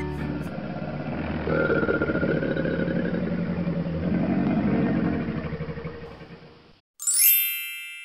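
Alligator growl sound effect: a low, pulsing rumble that fades out near the end. Then a bright chime rings once and dies away, louder than the growl.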